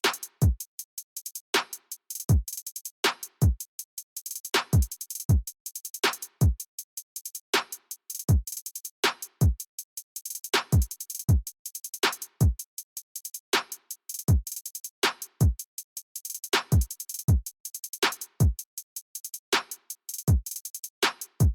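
Background electronic music: a steady drum-machine beat with deep kicks falling in pitch and quick hi-hat ticks.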